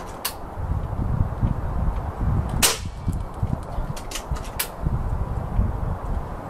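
A Retay hammer-spring PCP air rifle, fitted with a converted fuel-filter silencer, fires once about two and a half seconds in: a single sharp crack with a brief tail, peaking around 86 dBA on the meter. A low rumble of wind on the microphone runs underneath.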